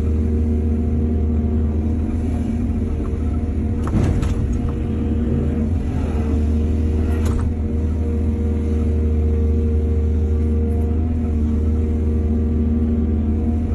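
Heavy diesel engine of an excavator running steadily, with two brief knocks about four and seven seconds in.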